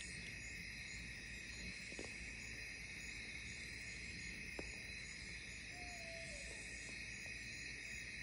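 Steady chorus of crickets and other night insects, a constant high-pitched trilling, with a faint short falling call about six seconds in.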